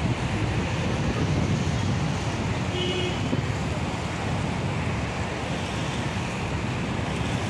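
Wind buffeting the microphone over a steady wash of sea and seafront noise. A brief high beep sounds about three seconds in.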